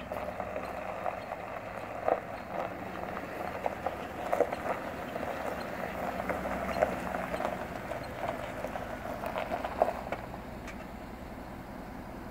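Footsteps crunching on gravel, irregular with a few sharper crunches, stopping about ten seconds in, over a faint steady low hum.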